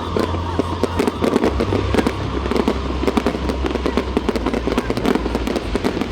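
Aerial fireworks going off in a dense, continuous run of sharp crackling pops, many small reports a second, over a steady low rumble.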